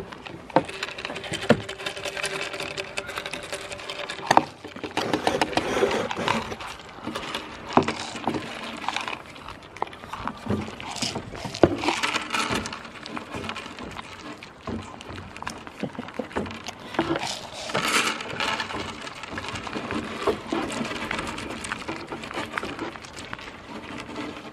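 Goats eating beans off a tabletop close to the microphone: muzzles and lips nosing and picking up the beans, chewing, and many small clicks and knocks as the beans and their mouths hit the table surface.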